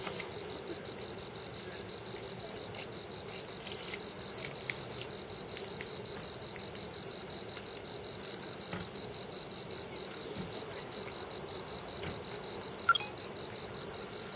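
Night insects: a continuous fast trill with a higher short chirp every few seconds, over a faint steady background hiss. A single sharp click near the end.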